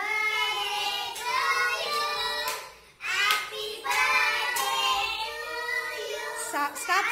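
A group of children singing a song together, with some hand-clapping; the singing breaks off briefly about three seconds in, then a second phrase begins.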